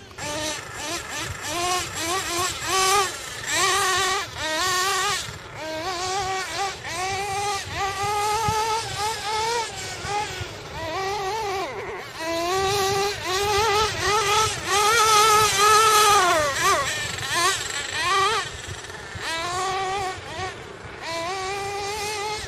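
GS Racing Storm Evo nitro RC car's 3.5 cc two-stroke glow engine, running on 16% nitro fuel, revving up and down over and over as it is driven, its high whine rising and falling about once a second. About two-thirds of the way in it winds up to its loudest and highest for a couple of seconds before dropping back.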